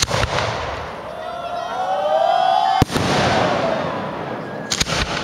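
Fireworks display: sharp bangs of shells bursting, one at the start, a loud one about three seconds in and a quick cluster near the end, with whistles gliding in pitch between them.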